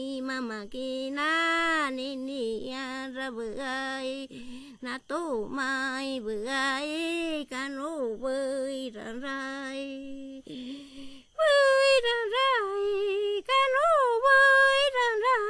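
A woman's voice singing a melody unaccompanied, with held notes and quick pitch bends, moving up to a higher register about eleven seconds in.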